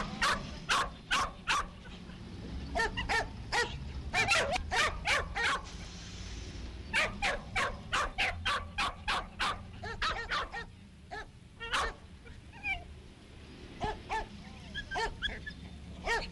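Dogs barking in quick runs of sharp barks, with a quieter stretch of fainter yelps and whines partway through.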